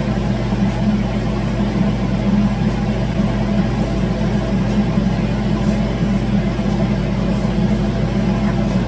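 Steady low hum of a running kitchen appliance motor, with faint scraping of a hand mixing flour in a stainless steel bowl.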